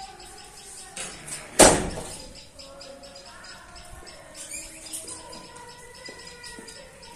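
A sudden loud knock about one and a half seconds in, the loudest thing here, over a steady background of fast, even high-pitched chirping.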